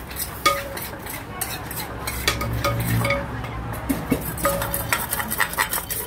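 Wooden pestle and metal spoon knocking and scraping around the inside of a large clay mortar as seasoning is mixed. There is a ringing metal clink about half a second in, and quicker tapping and scraping in the last second and a half.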